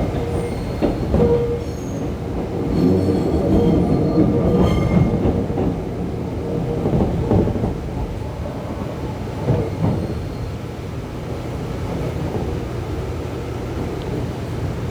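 Gyeongui Line passenger train rumbling slowly along the track as it pulls into the station. Thin wheel or brake squeals and clunks come through the first five seconds, with a few more knocks later before the running settles to a steady rumble.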